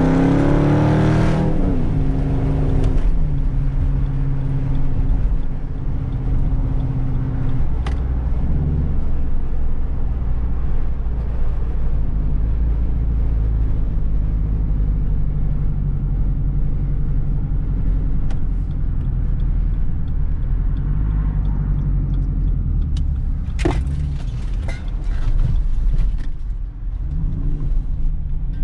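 Straight-piped Jeep SRT V8 exhaust while driving. A rev rises and falls in the first few seconds, then the engine settles into a steady low drone at cruise. A few sharp clicks come near the end.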